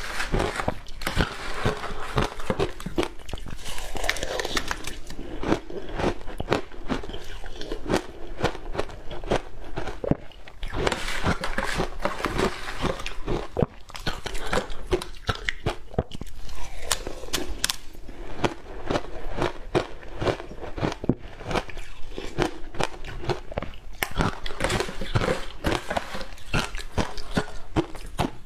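Close-miked crunching and chewing of frozen shaved ice: a dense, irregular run of crisp crackling bites and crunches as mouthfuls of ice are broken up between the teeth.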